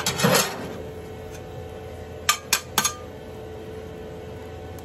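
Steel griddle spatulas scraping across a cast iron griddle as food is scooped up, then three sharp metal clinks about two and a half seconds in. A faint steady hum runs underneath.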